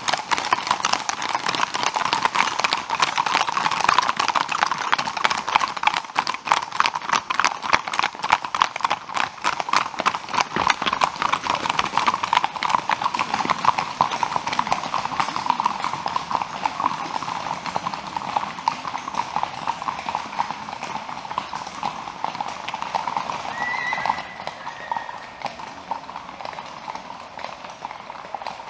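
Hooves of a group of Icelandic horses clip-clopping on a wet paved road: a dense, overlapping patter of many hoofbeats that grows fainter over the last few seconds as the horses move away.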